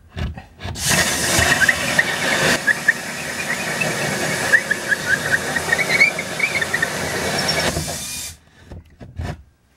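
Cordless drill driving a hole saw through the 3/4-inch plywood bottom of a cabinet: a steady cutting rasp with short high squeaks from the saw teeth, starting about a second in and stopping abruptly about eight seconds in as the saw breaks through.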